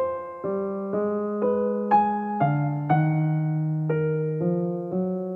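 Background music: a piano playing a slow run of chords, a new chord struck about twice a second, each fading before the next.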